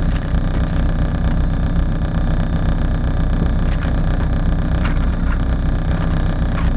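Nissan Sunny GTi-R rally car's turbocharged four-cylinder engine idling steadily, heard from inside the cabin while the car stands waiting.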